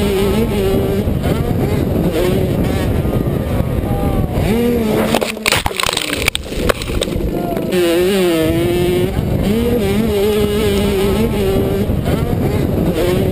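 Suzuki RM85 two-stroke dirt bike engine revving up and down under hard riding, with wind buffeting the helmet microphone. About five seconds in, a rapid jumble of knocks and thuds takes over as the rider crashes after a mid-air collision. From about eight seconds the engine is heard revving again.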